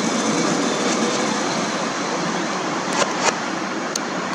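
Steady rushing noise of a passing vehicle, with a few sharp clicks about three seconds in.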